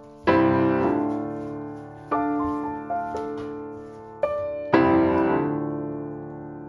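Slow, gentle solo piano music: chords struck about every two seconds, each left to fade, the last one ringing out slowly.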